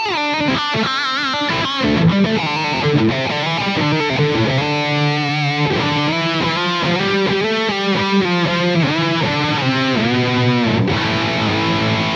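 Electric guitar played through a Line 6 Firehawk FX multi-effects modeller on a lead preset. It plays a solo line of fast melodic runs mixed with held notes that are bent and shaken with wide vibrato.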